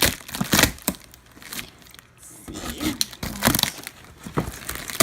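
Cardboard boxes and their contents being handled and shifted: a series of separate sharp cracks, knocks and rustles.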